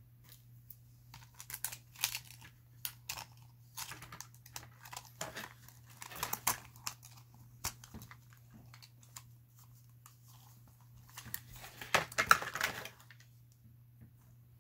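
Handling of a plastic dinosaur toy and its cardboard packaging: irregular rustling, crinkling and small clicks of plastic parts, with a louder burst of rustling about twelve seconds in. A faint steady low hum lies underneath.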